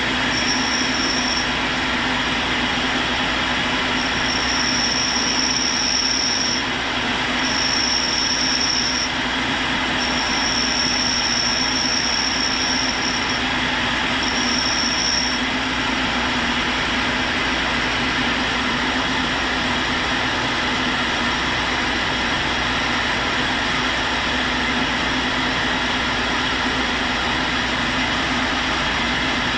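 Tool and cutter grinder running with a steady hum and hiss while its wheel touches up a high-speed steel roughing end mill; a thin high-pitched whine comes and goes about five times in the first half as the cutter is passed across the wheel.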